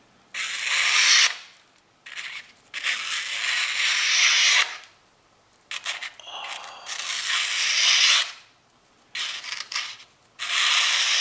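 Honey Badger pocket knife slicing through a sheet of paper, a papery hiss with each stroke. About half a dozen strokes, each a second or two long, with short pauses between them; the sharp blade cuts cleanly.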